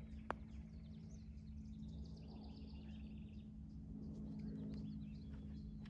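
Songbirds chirping faintly over a low, steady outdoor hum, with one sharp click a fraction of a second in.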